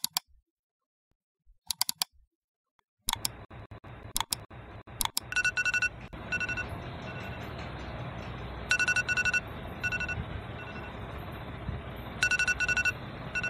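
A few sharp mouse clicks in the first five seconds. Then an electronic alarm beeps in groups of rapid high beeps, each group a few seconds apart, over a steady hiss.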